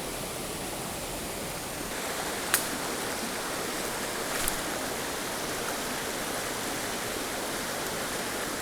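A mountain creek's water running steadily, with two short sharp clicks about two seconds apart.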